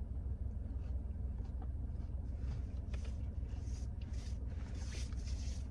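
Steady low hum of a car running, heard inside its cabin, with soft chewing and rustling sounds of someone eating from about halfway in.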